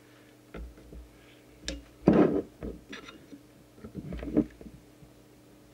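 Scattered handling noise as a trimming tool and hand work a preset on a CB radio's circuit board: a few soft knocks and rubs, the loudest about two seconds in, over a faint steady hum.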